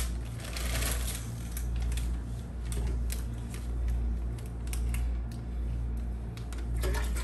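Plastic water bottles being handled and their screw caps twisted open: irregular clicks and crackles of thin plastic. Under them runs a steady low hum that swells and fades about once a second.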